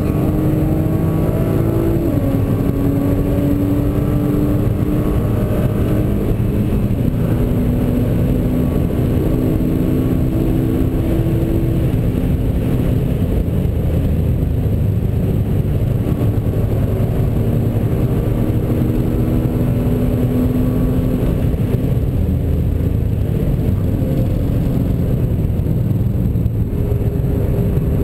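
Nissan GT-R's twin-turbo V6 heard from inside the car, pulling hard through the gears on a long straight. The engine note climbs and drops back at each upshift over the first twelve seconds or so; in the second half the car lifts off and slows.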